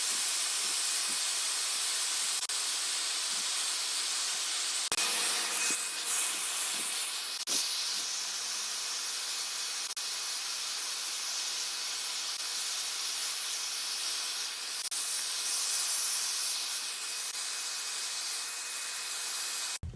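Vacuum cleaner running steadily, sucking up dust as it is brushed off the TV's cooling-fan parts. A few light knocks and a slight change in its tone come around five to eight seconds in, and it cuts off just before the end.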